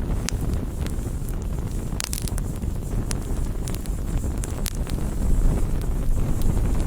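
Fire burning with a steady low roar and scattered sharp crackles and pops, a quick cluster of them about two seconds in; it grows a little louder near the end.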